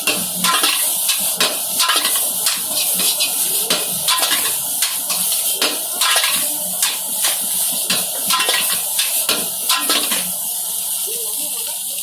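Metal utensils and dishes clattering in many quick, irregular knocks over a steady hiss, with voices in the background.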